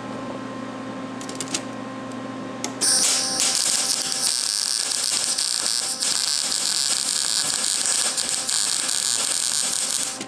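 MIG welder arc crackling and hissing steadily for about seven seconds as a bead is run on sheet metal to build up a weld, stopping abruptly near the end. Before the arc strikes, a steady electrical hum.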